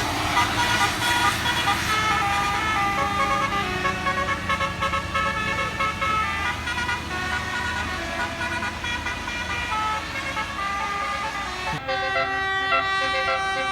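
A bus's telolet basuri horn, a set of air horns playing a tune in held notes that step up and down, over engine and road noise. About twelve seconds in, the background noise drops away and the horn notes ring out cleaner.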